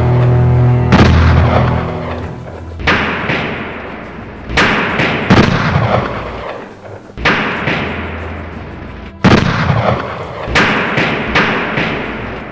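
Gunshot sound effects: about nine single loud shots a second or two apart, each with a long echoing tail. A low music drone sounds under the first two seconds.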